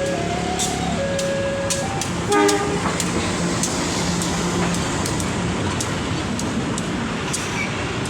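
Railway level-crossing warning siren alternating between a lower and a higher tone, hoarse and almost laughing, stops about two seconds in. A short horn blast follows. A train then passes with a steady rumble and scattered clacks.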